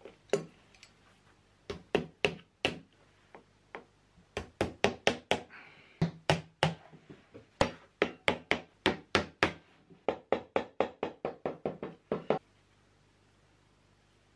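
Short runs of sharp hammer taps driving lasting tacks through a leather upper into the insole on a shoe last, about four taps a second. They stop about two seconds before the end.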